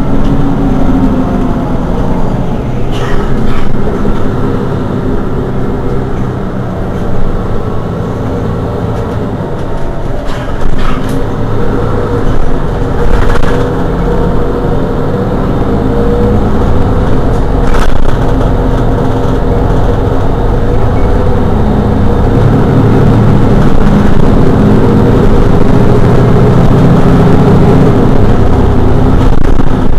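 Mercedes-Benz Citaro G articulated city bus's diesel engine idling steadily while the bus stands still. A few brief clicks break in, and the engine's low rumble grows louder in the last third.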